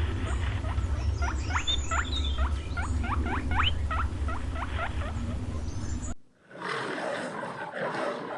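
Small animals squeaking rapidly, many short high squeaks sweeping steeply in pitch, several a second, over a low hum. About six seconds in the squeaking cuts off and a rough, growling lion's roar begins.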